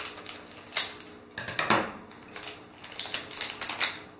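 Scissors snipping through a small blind-box toy package and being set down on the table, then the wrapping crinkling as it is pulled open by hand: a string of irregular sharp clicks and crackles.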